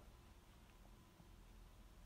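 Near silence: faint room tone with a low hum.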